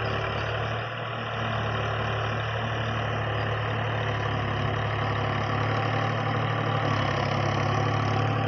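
Fiat 480 tractor's diesel engine running steadily as it works a tilled field, with a brief small dip about a second in and a little louder near the end.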